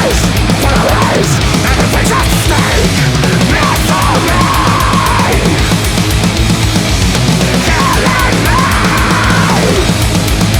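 Background music: loud, hard-driving rock or metal with a steady beat and a distorted lead line.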